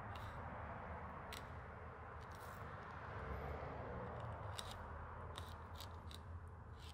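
A thin fillet knife slicing along the rib bones of a rainbow trout fillet, giving scattered faint clicks and ticks as the blade meets bone, over steady low background noise.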